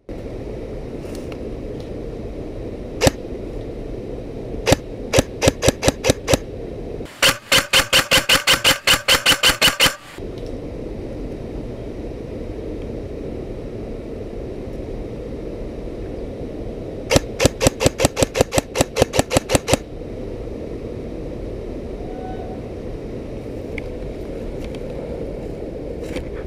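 Airsoft electric M4 rifle firing in rapid strings of sharp cracks: one lone shot, then a run of about seven, a loud dense burst lasting about three seconds, and later a run of about ten, over a steady rush of background noise. The footage is sped up.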